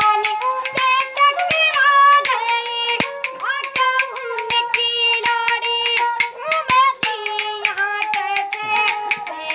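A boy singing a folk song to a bowed ravanahatha, the fiddle's held notes running under the voice, with a quick beat of sharp clicks.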